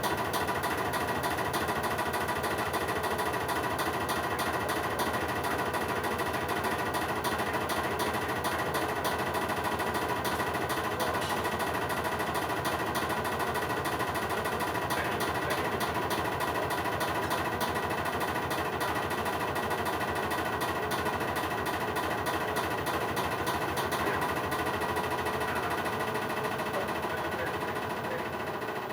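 LG washing machine on its spin cycle, running with a steady loud rattling vibration as the machine shakes. This is abnormal spin noise from a machine under two weeks old that has been levelled, with its transport bolts removed and only a light load in it. The level eases slightly near the end.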